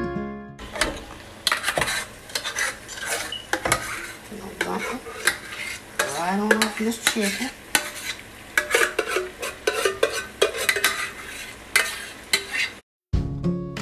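A utensil scraping and clinking against a stainless steel pot as thick creamy sauce is scraped out into a pan of shredded chicken and vegetables, with a few short squeaks in the middle and a faint sizzle from the pan.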